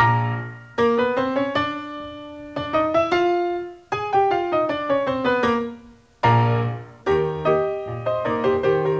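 Piano music: struck notes and chords that ring and fade over low bass notes, with a brief pause about six seconds in before the playing resumes.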